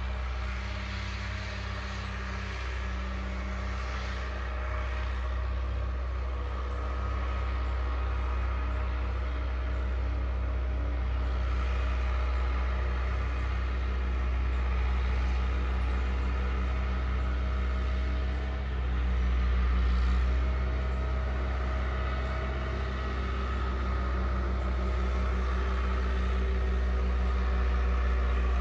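Vehicle engine running steadily: a constant low hum with a steady higher engine tone, briefly louder about two-thirds of the way through.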